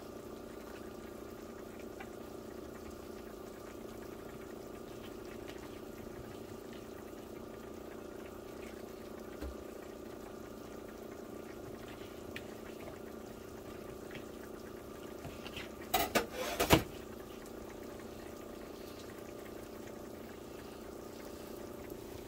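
Butter and garlic heating in a nonstick frying pan, a faint steady sizzle over a constant hum. A quick cluster of sharp knocks comes about sixteen seconds in.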